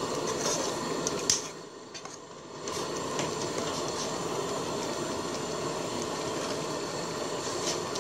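Thick curry bubbling and simmering in an aluminium pot, a steady burble that dips quieter for about a second near the start. A few light clicks of the ladle against the pot.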